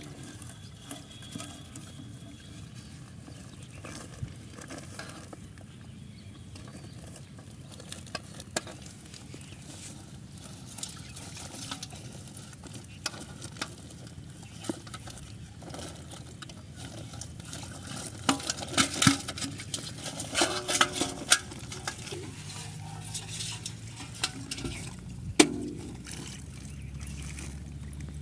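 Crabs being handled from a metal basin into a woven plastic sack: rustling and scraping, with a flurry of loud clicks and rattles about two-thirds of the way through and a single sharp click near the end.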